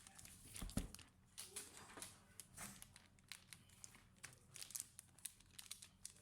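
Faint, irregular light clicks and rustling of small objects or packaging being handled up close.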